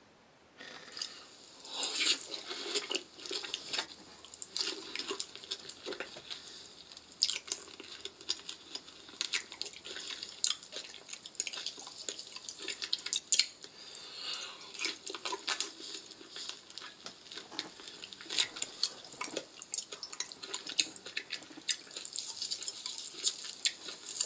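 Close-miked wet squelching and sticky clicking of raw liver being handled and pulled apart by gloved hands, mukbang-ASMR style, a dense irregular crackle of small smacks.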